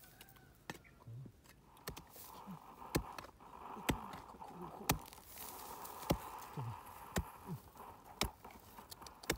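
A short-handled metal hoe chopping into dry, grassy ground, a sharp strike about once a second.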